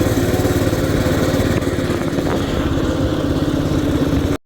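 Baja Warrior minibike's small single-cylinder four-stroke engine running steadily, freshly revived with a new carburetor after sitting; the sound cuts off suddenly near the end.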